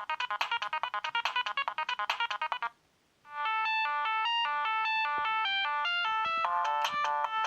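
Siemens A60 mobile phone playing its preloaded ringtones. A tune of fast, quickly repeated notes stops about two and a half seconds in. After a half-second pause the next ringtone begins, a slower electronic melody with several notes sounding at once.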